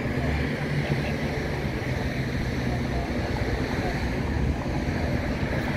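Steady low rumble and hiss of a car driving: engine and road noise.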